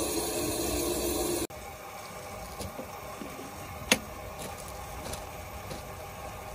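A steam locomotive standing in steam, with a steady hiss for the first second and a half. Then comes a quieter stretch with one sharp metallic tap a little before the four-second mark, as an oil can is worked around the locomotive's valve gear.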